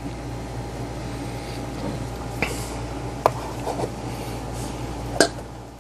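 A few light clicks and taps from a plastic multimeter case being handled and turned over, over a steady low hum.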